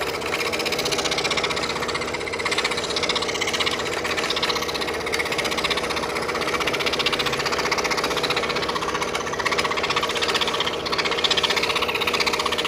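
Scroll saw running steadily, its fine reciprocating blade cutting jigsaw puzzle pieces out of a thin wooden panel.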